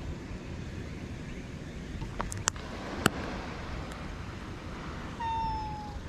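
A cat meows once near the end, a single drawn-out note that falls slightly, over a steady rumble of wind and surf. A few sharp clicks come between two and three seconds in.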